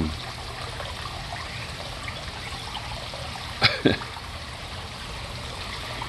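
Steady trickle of running water, with two short sharp sounds about three and a half seconds in.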